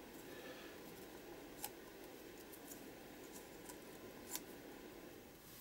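Quiet room tone with a few faint ticks and rustles of small printed paper strips being laid down and nudged into place on a journal page; the sharpest tick comes about four seconds in.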